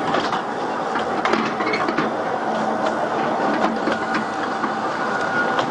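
Open carriages of a narrow-gauge mountain tourist train rattling along the track, with a steady clatter and frequent sharp clicks from the wheels on the rails.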